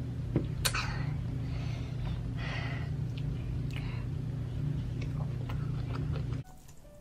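Young child eating noodles with her fingers: mouth sounds, with a sharp noisy burst about a second in and a few breathy hisses after, over a steady low hum that cuts off suddenly near the end.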